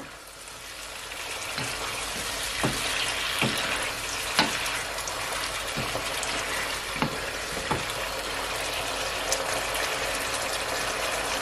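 Thick mushroom curry gravy sizzling and bubbling in a nonstick frying pan. A plastic spoon stirs it and knocks against the pan a handful of times.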